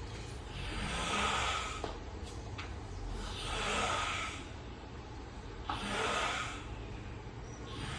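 A sleeping man snoring: three long snores about two and a half seconds apart, with a fourth beginning at the end.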